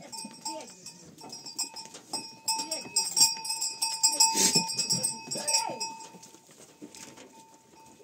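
A herd of goats crowding through a doorway into a stone shed, their bells clanking and ringing and some goats bleating. The ringing is busiest and loudest from about halfway through.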